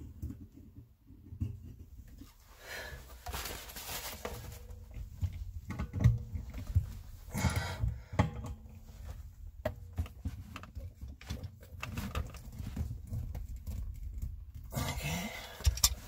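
Adjustable wrench and channel-lock pliers clicking and scraping on brass fittings as a ball valve is tightened onto a water heater's drain port, with a few short hissy breaths from the effort.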